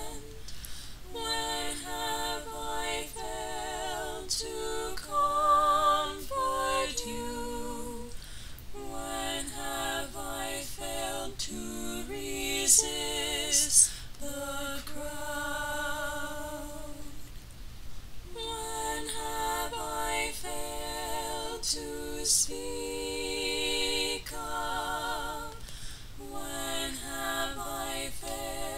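Unaccompanied female voice singing a slow, plaintive melody with vibrato, in long phrases broken by short breaths. Two brief sharp hisses sound about halfway through.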